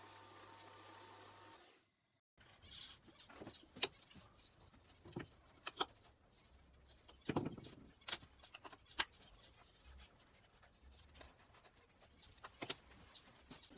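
A steady hum stops suddenly a little under two seconds in; after a short silence come scattered clicks and knocks, several of them sharp, from a wooden back plate and perch being bolted onto galvanised wire aviary mesh.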